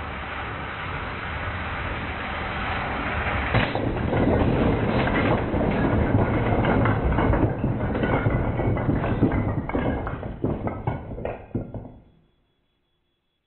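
A LEGO 7939 cargo train running on plastic track and crashing into a cube of wooden Jenga blocks, heard slowed down. A rumble from the train builds over the first few seconds, then a long run of clattering knocks follows as the wooden blocks tumble, and the sound cuts off suddenly about a second before the end.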